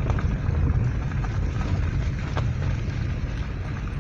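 Car driving slowly over a rough dirt road: a steady low rumble of engine and tyres, with a few light knocks from the body and suspension over bumps.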